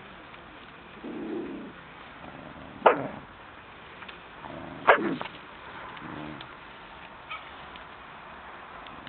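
Dog growling in short low spells, with two sharp barks about three and five seconds in; it is guarding its food.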